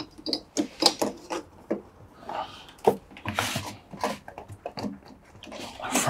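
Hands working wiring and plastic parts inside an opened washing machine: a string of small clicks, taps and rustles, with a longer rubbing rustle about halfway through.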